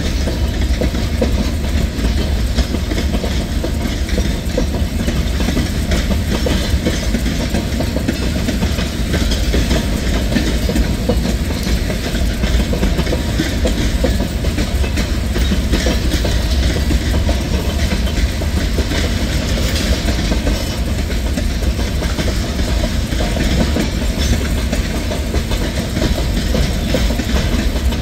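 Norfolk Southern manifest freight train's cars, mostly tank cars, rolling past close by: a steady loud rumble of steel wheels on the rails.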